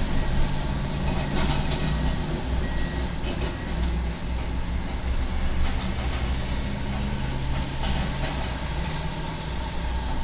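Komatsu demolition excavator's diesel engine running steadily under hydraulic load as it works its grapple, with several sharp clanks of metal and debris from the rubble.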